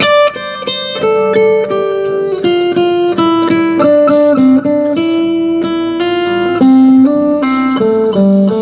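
Band playing an instrumental passage, a guitar picking a quick melodic lead line of single notes over held lower notes.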